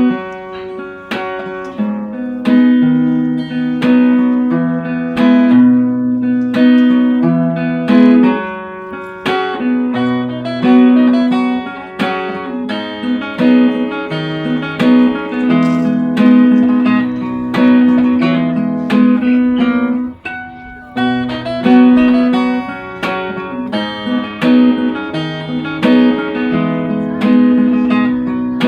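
Acoustic guitar music: plucked and strummed notes in a steady rhythm over a held low note.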